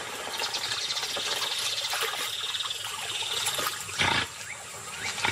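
Giant otters feeding in shallow water: a steady wet, watery chewing-and-splashing noise, with one louder short noise about four seconds in.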